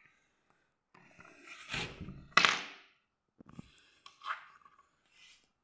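Close handling noise from a hand working LEGO pieces: rustling with a dull thunk about two and a half seconds in, then a few lighter clicks, as a LEGO minifigure is set onto a LEGO-brick scale.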